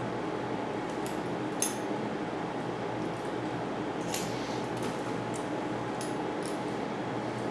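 Small metal tools and bike parts clinking as they are handled: a handful of short, sharp clicks, the loudest about one and a half seconds in, over a steady hum.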